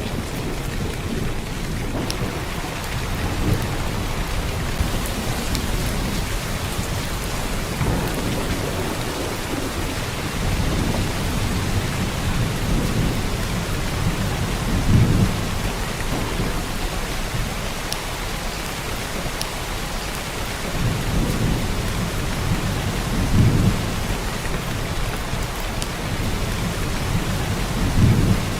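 Heavy downpour of rain, a steady dense hiss, with deep low rumbles swelling up briefly several times, around halfway through and twice near the end.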